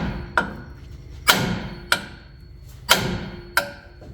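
Sledgehammer blows on the steel front suspension of a Chevrolet Colorado pickup, struck to drive out a ball joint. There are five sharp metal-on-metal strikes, each ringing briefly.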